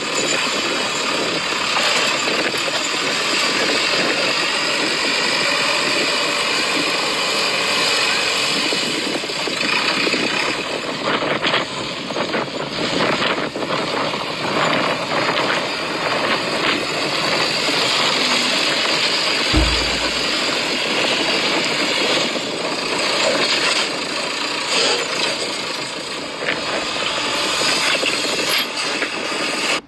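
Yigong remote-control toy excavator's small motors and gears whirring steadily as it works its arm and bucket, with scraping and clicking through the middle and near the end. There is a low thump about twenty seconds in.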